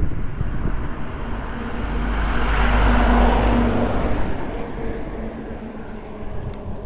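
A motor vehicle passing on the road, its engine and tyre noise swelling to a peak about three seconds in, then fading away.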